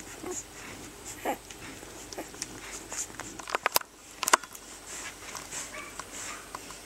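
One-week-old rough collie puppies making small squeaks and suckling noises, with a cluster of sharp clicks a little past the middle.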